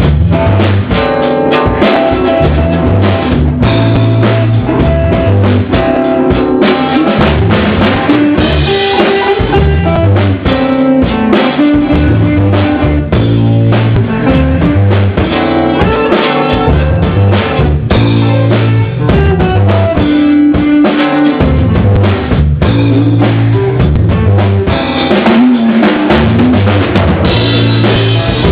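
Loud band music with a drum kit keeping a steady beat, bass drum and snare prominent, over bass and guitar.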